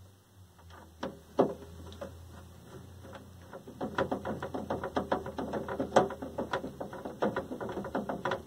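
Screwdriver turning screws into a TV's plastic back cover to fasten it on: a couple of knocks about a second in, then a fast, irregular run of clicks from about four seconds in.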